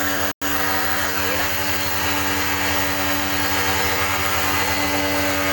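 Electric pressure washer running steadily with a fixed-pitch motor hum over the hiss of its water jet spraying the aircon coil. The sound cuts out for an instant about a third of a second in.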